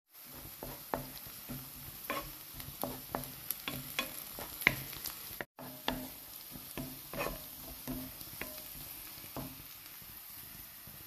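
Chopped onions sizzling in oil in a frying pan while a spatula stirs them, knocking and scraping against the pan in quick, irregular strokes. The sound breaks off for a moment about halfway through, and the stirring stops near the end, leaving the sizzle.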